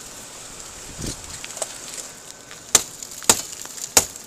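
Three sharp, hard blows about two-thirds of a second apart, starting nearly three seconds in: strikes against the overturned car, as rescuers try to break in and reach the trapped occupants.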